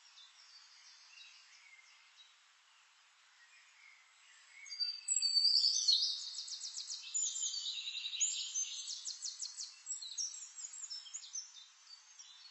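Songbirds singing: faint chirps at first, then from about four and a half seconds in louder, high bird song with rapid trills, easing off toward the end.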